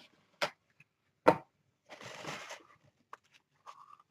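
Small objects handled on a tabletop: a sharp knock, a louder one about a second later, then a short rustle and a few faint ticks.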